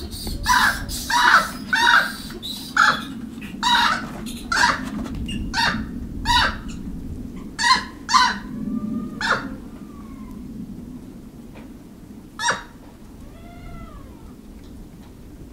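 Japanese macaques calling from a packed huddle: a run of short, harsh calls about two a second for the first nine seconds or so, then a few thin rising-and-falling coo calls and one loud harsh call about twelve seconds in.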